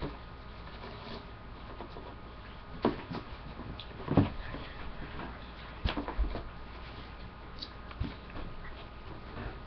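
Handling noise of sheets of cardboard being moved about: a handful of scattered knocks and thumps, the loudest about four seconds in.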